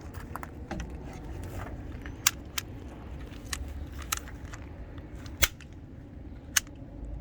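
About five sharp, irregularly spaced clicks from chainsaw parts being handled, over a low steady hum.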